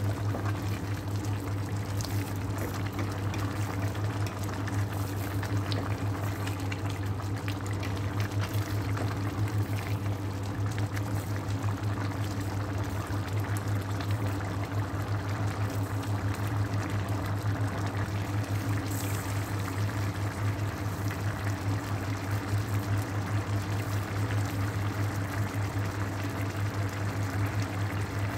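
Chicken pulao boiling hard in a steel pot: the rice and broth bubble continuously, with a steady low hum underneath.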